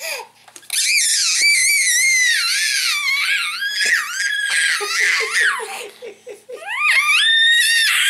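A baby squealing in high-pitched, wavering screams for about three seconds, then a run of short laughs, then another squeal rising up near the end.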